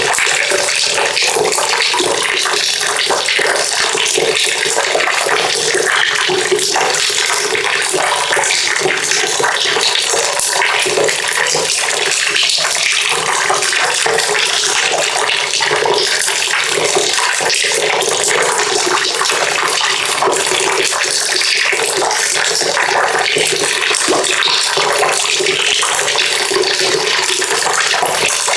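Water pouring steadily into a bucket, a dense unbroken splashing stream.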